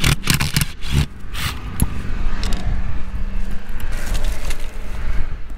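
Wind buffeting the microphone in a steady low rumble. In the first second and a half, and now and then after, there are sharp clicks and scrapes from a screwdriver working the screws out of a plastic RV roof vent cap.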